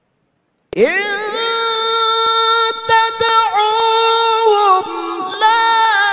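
Male Quran reciter's voice in melodic tilawah: after a short silence, about a second in, it swoops up into one long held high note, ornamented with small turns, and steps down to a lower held note near the end.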